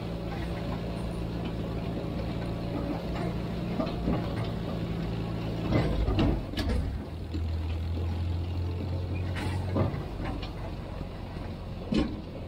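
Farmall 350 tractor's four-cylinder gas engine running steadily under load while pulling a square baler, with a few sharp knocks mixed in. The engine note shifts about halfway through and again near the end.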